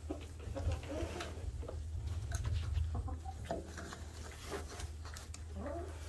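Hens clucking softly, a scatter of short murmured calls, over a low rumble.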